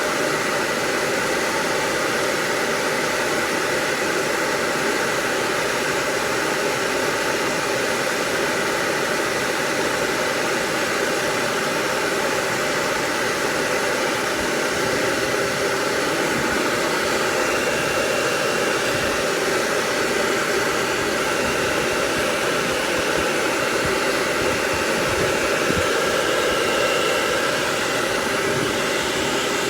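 Blow dryer running steadily, drying a Basenji's coat.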